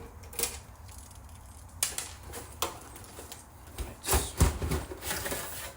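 Handling noise from taking apart a Sony SLV-393 VCR: a few separate clicks, then a louder cluster of knocks and scraping about four seconds in as its top cover is lifted off.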